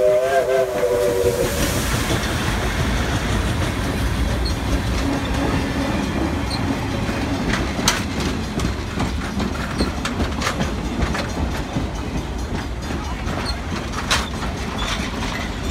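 Iowa Interstate 6988, a Chinese-built QJ class 2-10-2 steam locomotive, finishes a chime whistle blast in the first second or so. Then the locomotive and its passenger cars rumble past at close range, the wheels clicking sharply over rail joints a few times.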